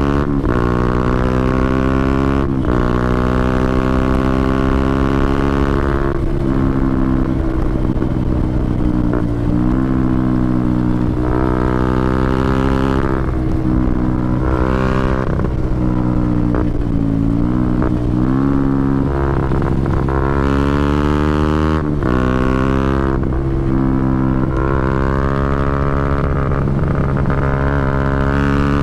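KTM Duke 125's single-cylinder four-stroke engine through a Scorpion aftermarket exhaust with the dB killer removed, heard onboard while riding. The exhaust note rises and falls with the throttle, broken by short sharp dips every few seconds as it changes gear.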